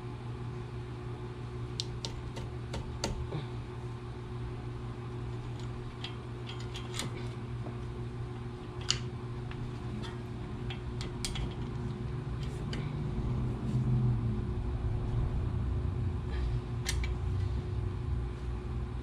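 Scattered light metallic clicks and taps as brake pads and caliper parts are handled and slotted into a brake caliper, over a steady low hum.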